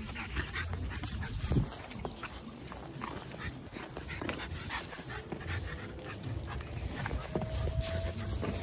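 French Bulldog puppies whimpering and moving about, with small knocks and scuffles; a thin, steady whine sounds in the last few seconds.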